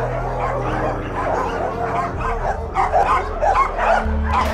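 A pack of many dogs barking and yelping at once, thick and overlapping, growing louder from about halfway through, over a low steady hum.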